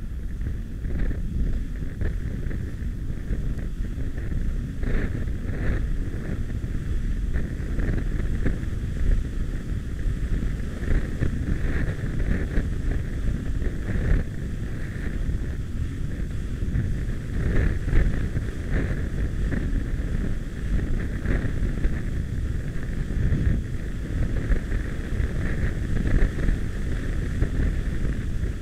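Jet ski running at speed over choppy sea: a steady low rumble with a high engine whine that swells now and then, under heavy wind buffeting on the microphone.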